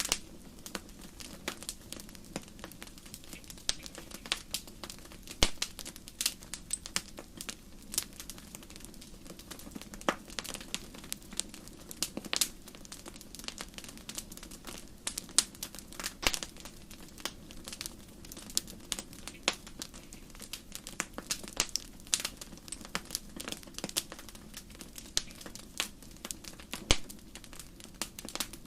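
Campfire crackling: irregular sharp pops and snaps from burning wood over a steady low rumble of flame.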